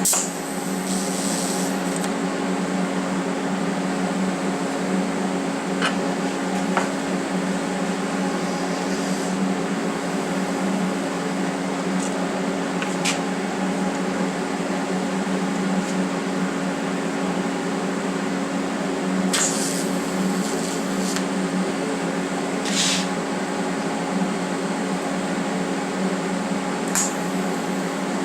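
Steady electrical hum of running shop equipment with a cooling fan, with a few short hisses and faint ticks now and then.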